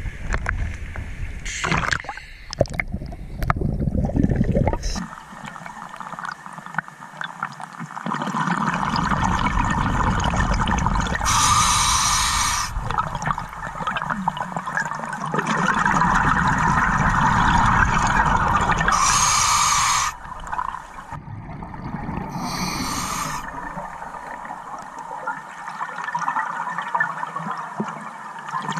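Water sloshing against the camera as it goes under, then scuba breathing underwater: long gurgling exhalations of regulator bubbles broken by a few short hissing inhalations.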